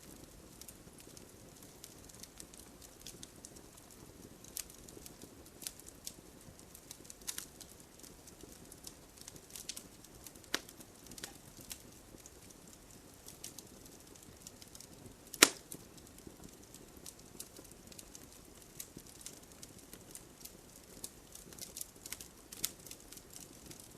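Campfire burning, wood crackling with scattered sharp pops over a low steady hiss; one pop about halfway through is much louder than the rest.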